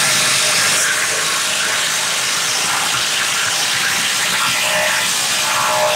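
DeWalt DCF887 impact driver hammering steadily and without letup as it drives into a wooden beam, a dense rattling buzz. It is being run hard under sustained load, and its motor is overheating.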